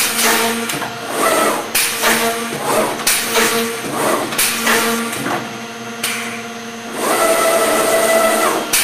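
Accu-Systems OHV boring, routing and doweling machine cycling on a wooden part: a sharp clack about every second or so, with air hiss and motor whines that rise and fall. Near the end a steady motor tone runs for about two seconds, then stops with another clack.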